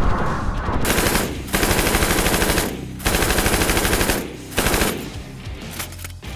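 PKM belt-fed 7.62x54R machine gun firing full-auto bursts of about a second each, with short pauses between them. The fire stops about five seconds in.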